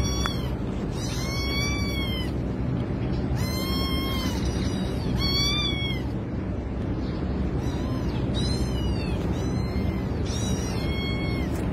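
A kitten meowing about six times in high-pitched cries, each rising then falling in pitch: distress cries from a kitten with its head stuck in a pipe.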